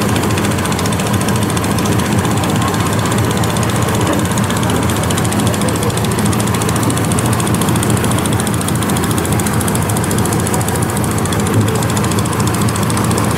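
Boat engine running steadily with a fast, even knocking beat, heard loud and close from on board the moving boat.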